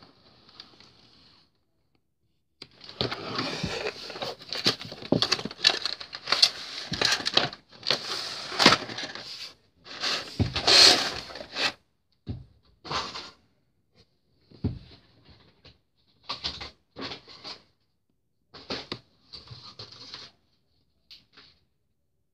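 Model-airplane packaging being opened and handled: cardboard box, white plastic tray and clear plastic wrap rustling and crinkling, dense for several seconds, then in short scattered bursts.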